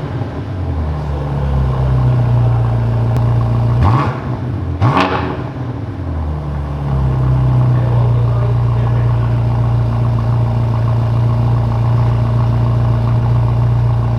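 BMW M5 Competition's 4.4-litre twin-turbo V8 exhaust idling, blipped twice in quick succession about four seconds in, then settling back to a steady idle.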